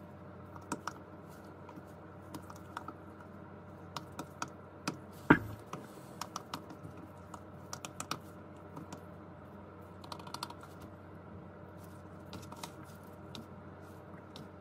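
Typing on an iPad Pro's Apple Smart Keyboard Folio, fabric-covered keys giving soft, irregular clicks in short runs. There is one louder thump about five seconds in.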